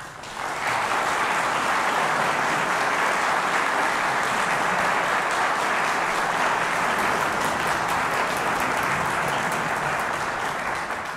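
Audience applauding steadily, fading in over the first second and starting to fade out near the end.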